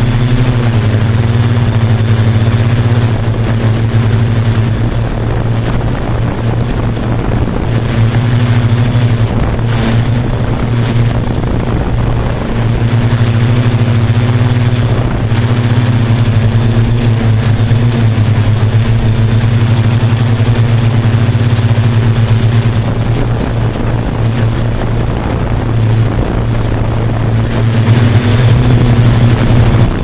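Quadcopter drone's electric motors and propellers buzzing with a steady low hum and overtones, a little louder near the end.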